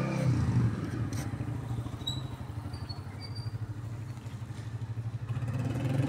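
An engine idling nearby, a steady low pulsing hum, with a few faint high chirps in the middle and a single click about a second in.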